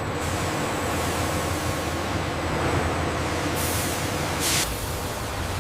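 Steady industrial machinery noise: a low hum under a broad hiss, with two short hissing rushes of air a little past the middle.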